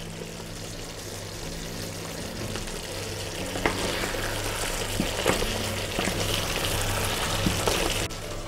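Meatballs in beer-and-onion sauce simmering in a frying pan with a steady sizzle. From about three and a half seconds in, a wooden spatula stirs them, with a few light knocks against the pan.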